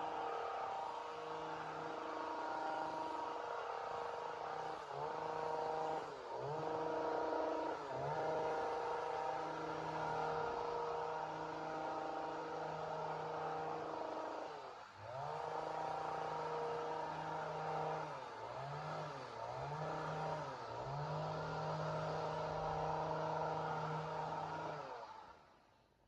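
Two-stroke chainsaw running at high revs, its pitch dropping and climbing back several times as the throttle is eased and squeezed again or the chain bites into wood. The engine winds down and stops near the end.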